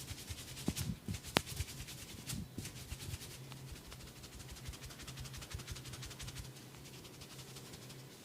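Hands working quickly on bare skin during a barber's massage: a fast, even patter of strokes, with a few sharper slaps or cracks in the first second and a half, over a steady low hum.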